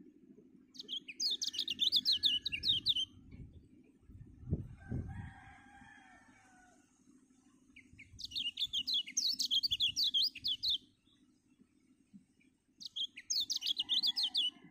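Caged white-eye (kecial) singing in three bursts of rapid, falling twittering notes, each two to three seconds long.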